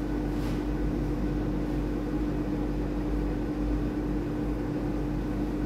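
Steady kitchen background noise: an even mechanical hum over a low rumble and light hiss, unchanging throughout.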